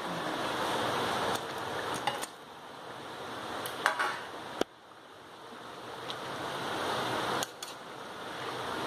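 Curry gravy simmering in a frying pan, a steady bubbling hiss, as fried chicken pieces are tipped in from a steel bowl and stirred with a wooden spatula. Several sharp clinks and knocks of the bowl and spatula against the pan are scattered through it.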